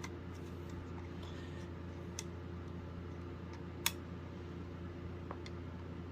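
A few light plastic clicks and taps from a plastic smoke alarm being handled, with one sharper click a little under four seconds in, over a steady low hum.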